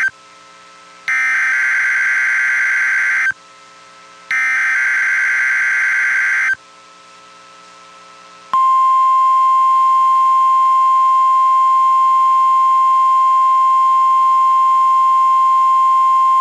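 NOAA Weather Radio alarm test: two bursts of the SAME digital header, each a harsh buzzing data screech about two seconds long with a pause of about a second between them, then the 1050 Hz warning alarm tone, one steady high beep held for about nine seconds.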